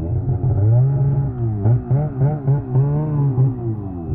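2024 Polaris 9R Khaos snowmobile's two-stroke twin, fitted with an aftermarket titanium chambered muffler, run at low speed with the throttle blipped. The engine pitch swells and falls once, then rises and drops in quick blips about three times a second.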